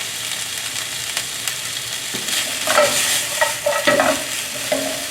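Chopped vegetables sizzling in hot oil in a frying pan, stir-fried with a spatula, with a steady hiss and a few short scrapes against the pan in the second half. The sizzle is the sign of a properly hot pan.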